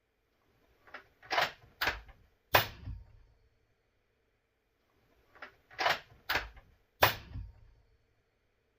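Suppressed .300 Blackout bolt-action rifle, a Ruger American Gen 2 with a Dead Air Wolfman suppressor, firing 220-grain subsonic rounds. There are two suppressed shots about four and a half seconds apart, and each is preceded by the bolt being worked in three quick metallic clacks.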